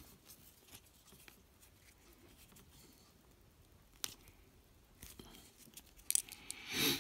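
Small handling noises as a paracord fob is pressed against the end of a shotgun-shell survival kit to push the ferro rod out: mostly quiet, a sharp click about four seconds in, a few more clicks near the end and a brief scrape just before it ends.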